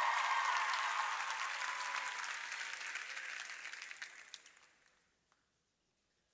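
Large arena crowd applauding and cheering, fading out over about five seconds.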